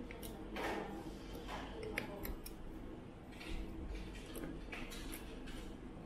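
Light, irregular clicks and taps of metal tweezers and small screws against a clear acrylic case during assembly.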